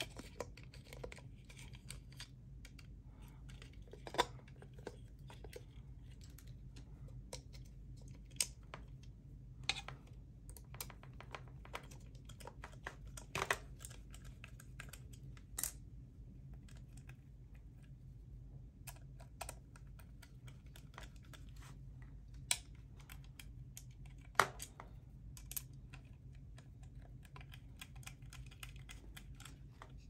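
Plastic fan-motor housing and small hand tools being handled: irregular light clicks and taps, with a few sharper knocks spread through, over a faint steady low hum.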